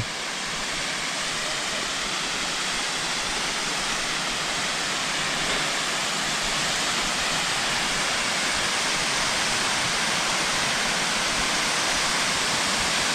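Waterfall: a steady, even rush of falling water, growing slightly louder over the first few seconds.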